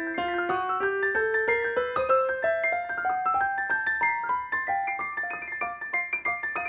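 Roland RD-300NX digital stage piano played live: a line of separate notes climbs steadily in pitch over about four seconds, with chords sounding above it, then carries on in the upper register.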